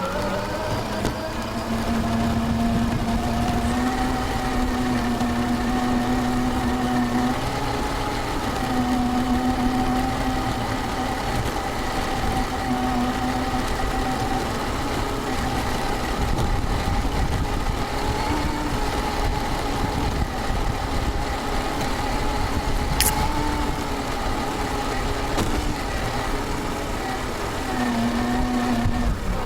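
Electric drivetrain of an RC rock crawler running, its brushless motor and gears giving a steady whine that shifts a little in pitch as the speed changes, over a rough rumble; one sharp click about two-thirds of the way through.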